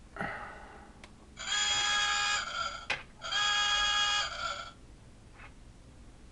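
Animal Planet toy boat's sound module set off by button presses: a click, then a steady buzzing electronic tone lasting about a second, then another click and the same tone again.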